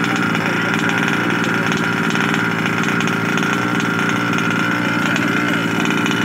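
20 cc petrol two-stroke engine of a 1/5-scale Baja RC buggy idling steadily, its pitch holding level without revving.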